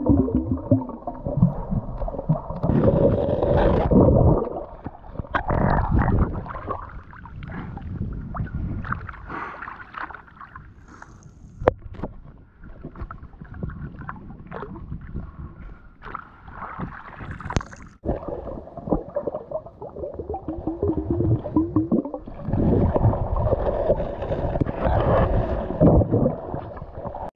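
Muffled water sloshing and gurgling, heard through a camera moving in and out of shallow seawater, with irregular swells and a few sharp knocks as hands handle shells and the net bag.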